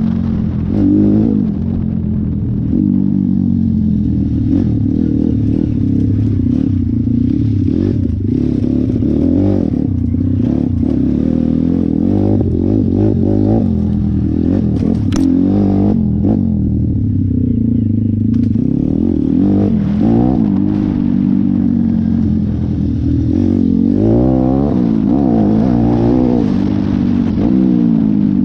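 YX 150 pit bike's single-cylinder four-stroke engine revving up and down as the bike is ridden over rough, muddy ground. Scattered clattering knocks come from the bike over the bumps.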